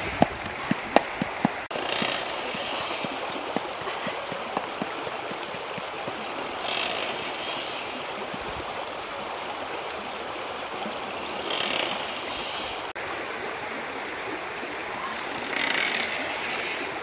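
Steady rush of a flowing stream, with a few sharp knocks in the first two seconds and a brighter hiss that swells briefly about every four seconds.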